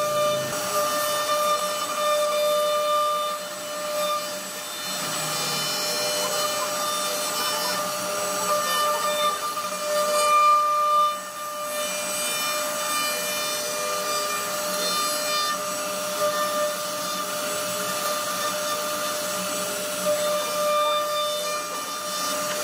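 CNC router spindle whining steadily while its bit carves a relief pattern into a wooden board, with the rough rasp of the cutter in the wood underneath. The cut gets briefly louder about ten seconds in.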